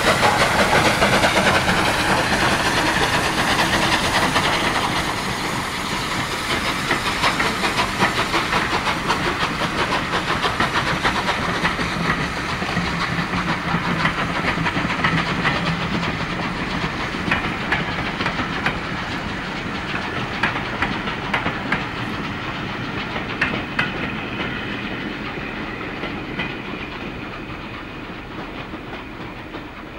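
Bulleid 'West Country' class steam locomotive 34039 going past with a hiss of steam, then its coaches rolling by, wheels clicking over the rail joints. The sound fades steadily as the train draws away.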